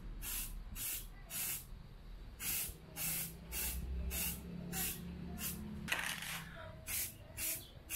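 Samurai Paint aerosol spray can hissing in short repeated bursts, about two a second with a couple of brief pauses, as black paint is sprayed in light passes.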